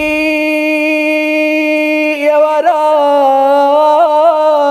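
A man's voice singing alone, with no accompaniment heard. It holds one long, steady note, then wavers through small ornamental turns and dips over the last two or three seconds.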